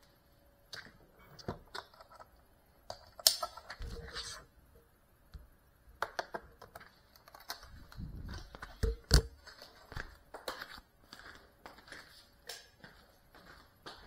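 Handling noise from a small FPV drone as it is picked up, moved and set down: irregular clicks, knocks and rustling close to its camera's microphone, with the loudest knocks about three and nine seconds in. The motors are not running.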